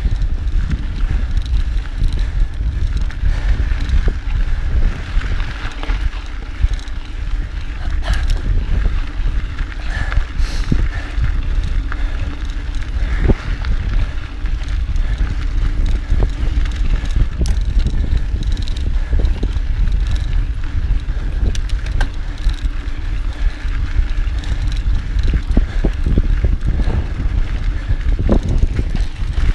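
Mountain bike riding over a rough dirt trail: tyres on dirt and gravel, with scattered knocks and rattles from the bike over rocks, and wind rumbling on the camera microphone.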